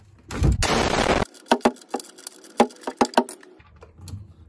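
Ratchet wrench loosening the oil drain plug on the oil pan: a loud noisy burst lasting about a second, then a run of sharp ratchet clicks at uneven spacing.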